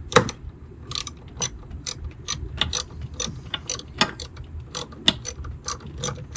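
Hand ratchet wrench clicking in short strokes, about two to three clicks a second, while tightening the fasteners of a truck's plastic wiper pulse motor controller.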